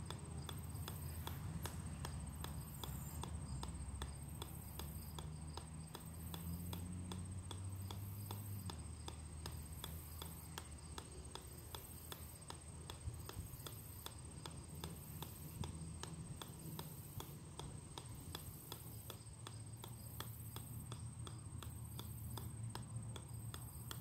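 Golf ball bouncing again and again off the steel head of an 8-pound sledgehammer, a steady run of light, evenly spaced ticks.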